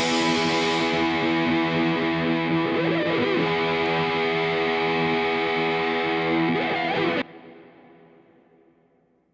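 Music: a distorted electric guitar chord held and ringing, which cuts off abruptly about seven seconds in and leaves a brief fading tail.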